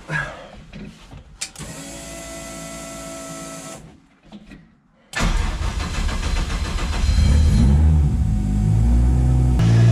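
Toyota 1JZ-GTE engine in a Nissan S13 being started: a few knocks, a steady electric whine for about two seconds, a short pause, then the engine starts about five seconds in and runs, getting louder from about seven seconds in.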